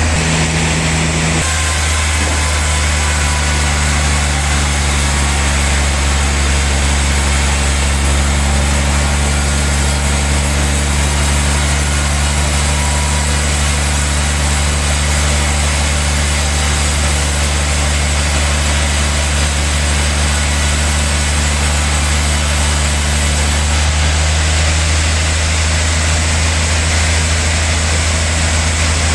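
Heavy log sawmill running steadily while sawing a large log, with a strong, continuous low hum. The sound shifts slightly about a second and a half in and again near the end.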